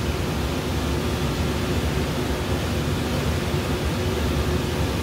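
Conveyor pizza oven's blower fan running, a steady rushing noise with a low hum underneath.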